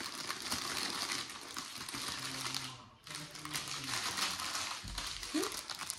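Cardboard box flaps and stiff plastic clamshell packaging rustling and crinkling as they are handled, with a short lull about halfway through.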